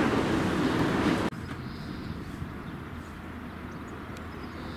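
A steady mechanical rumble with a low hum that cuts off abruptly about a second in, followed by quiet open-air background.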